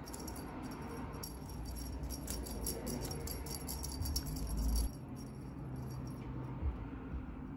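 Small metal bell on a cat's wand toy jingling over and over as the toy is swung and batted. A low thud about four and a half seconds in is the loudest sound.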